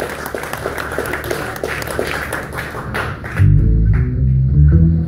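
Live blues music: an acoustic-electric guitar picked with quick percussive taps, then a little over three seconds in the music jumps louder into deep, sustained low notes.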